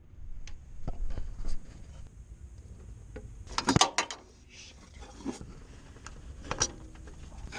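Scattered clicks and knocks of things being handled, with a louder clatter about halfway through and another sharp knock near the end.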